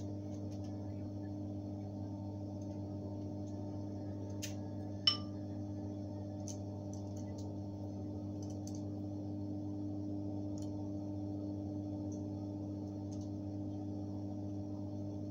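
A steady hum runs under scattered light clicks of a basting utensil against the foil-lined tray of sauced chicken wings. About five seconds in comes one sharp tap with a brief ring.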